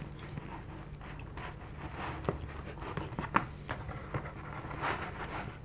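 Hands tearing a slice off a pizza in its cardboard box: faint scraping and rustling of crust against cardboard, with a few soft clicks, over a low steady room hum.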